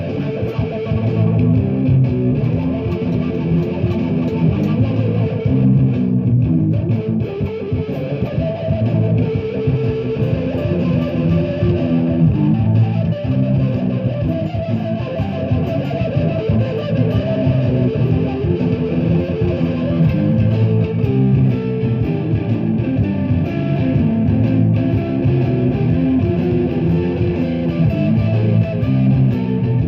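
Doubleneck electric guitar played in an improvised jam: a continuous stream of picked notes, mostly in the low and middle register.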